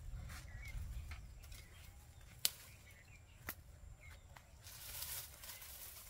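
Rustling of bitter-gourd vines and leaves being handled, with a sharp snap about two and a half seconds in and a smaller one a second later, and faint bird chirps.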